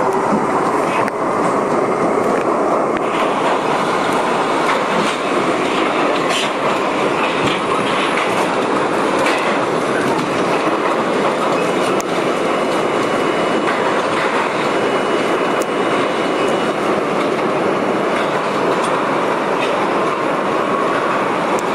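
Budd-built R32 subway car running at speed through a tunnel: a loud, steady rumble of wheels on rail with scattered clicks over rail joints. A faint, thin wheel squeal runs for several seconds in the middle.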